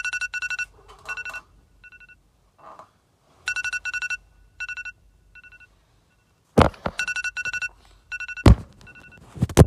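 Electronic ringing tone in rapid pulsed bursts, like a phone ringing, stopping and starting several times. Loud sharp thuds break in over the last three seconds.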